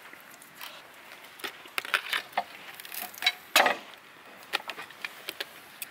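Scattered metal clinks and light knocks of a long-handled mountain-pie iron being handled and its two halves brought together on a wooden bench, the loudest knock about three and a half seconds in.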